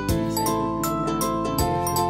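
Background music: sustained melodic notes over a steady percussive beat, with a deep hit about every second and a half.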